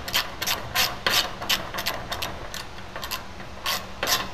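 Hand ratchet wrench clicking in short back-and-forth strokes, about three clicks a second, as bolts are snugged down into a chromed piece.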